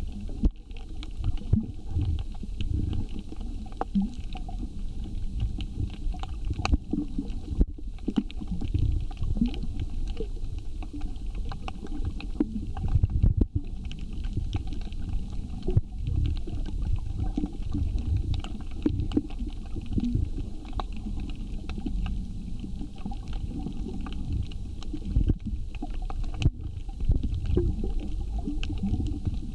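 Underwater reef ambience heard through a camera's waterproof housing: a steady, low, muffled rumble with many faint clicks and crackles scattered through it.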